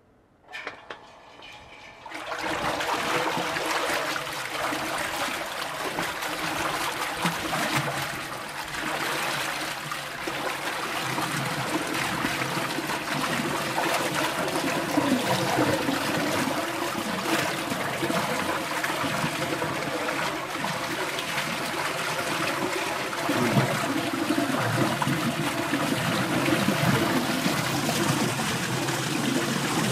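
Water churning and splashing inside a 380 L stainless steel mixing tank as its Satake agitator impeller stirs it. The stirring sets in about two seconds in and keeps on steadily, with a steady hum beneath.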